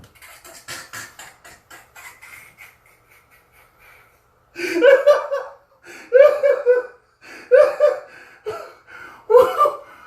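A person laughing hard in loud, separate bursts, starting about four and a half seconds in, after a few seconds of faint clicking and rustling.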